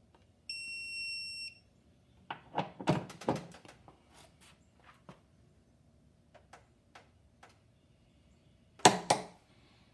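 A steady electronic beep about a second long, typical of a digital torque adapter, followed by a run of metal clicks and knocks as a 1/2-inch drive click-type torque wrench is fitted and pulled. A sharp double click near the end is the wrench clicking over at its set torque.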